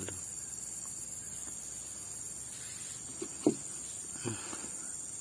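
Steady high-pitched insect chorus, crickets chirring without a break. A few soft knocks come a little past halfway, one of them sharper and louder than the rest.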